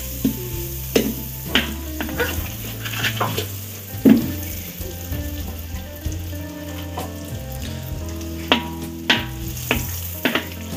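Butter sizzling and bubbling as it melts in a wok on a low flame, with a wooden spoon knocking and scraping against the pan in short clicks several times.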